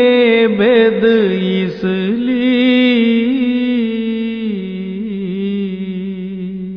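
A solo voice chanting a slow church hymn, with long held notes and wavering ornaments, a little softer in the second half.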